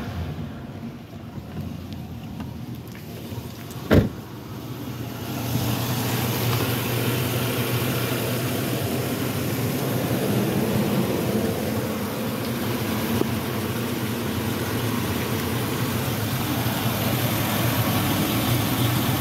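GM truck engine idling steadily, heard first from the open cab and then up close at the open engine bay, where it is louder, with a steady low hum. A single sharp knock about four seconds in.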